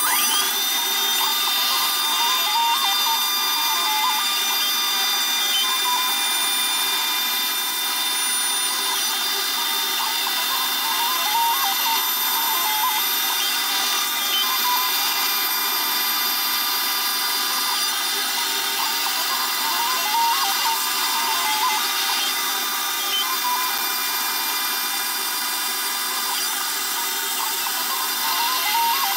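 CNC router milling a folding-knife handle scale: a steady high whine, with a tone that climbs to pitch at the very start, over rough, uneven cutting noise from the end mill. A shop vacuum clears the chips as the cut goes on.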